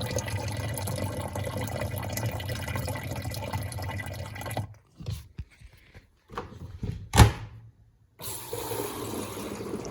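Water running and draining in an Electrolux Turbo Compacta top-loading washer, stopping about halfway through. A single sharp knock, the lid being shut, comes about seven seconds in, then the water sound resumes.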